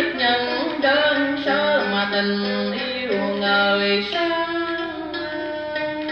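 A Vietnamese tân cổ giao duyên song playing from a 1972 vinyl record: a singer's voice, sliding between held notes, over plucked-string accompaniment.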